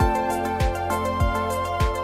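Background music: calm new-age style track with sustained keyboard notes over a steady low beat, about three beats in two seconds.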